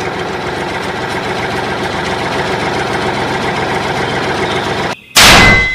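Tractor engine running steadily at idle with a fast even pulse. It cuts out briefly near the end and a sudden loud blast follows.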